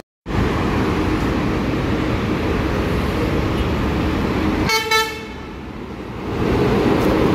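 Steady city road traffic with a short, high vehicle horn toot about five seconds in. The traffic dips briefly after the horn, then swells again as an articulated Transjakarta bus passes close below.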